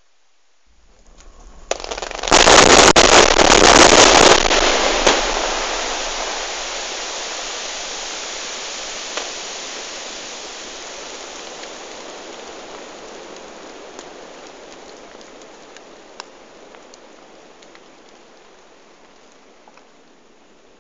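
Mass blast of some 600 charged boreholes going off: a rumble builds, a sharp report comes just under two seconds in, then about two seconds of very loud rippling detonations. A long, slowly fading rush follows, with scattered cracks and knocks.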